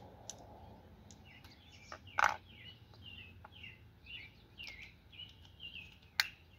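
Small birds chirping over and over in quick short calls, with two sharp clicks, one about two seconds in and one near the end, as an inline fuse holder on a red power cable is handled.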